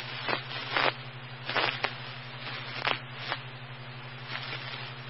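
Open radio scanner channel between transmissions: steady hiss over a low hum, broken by several short clicks and crackles of static.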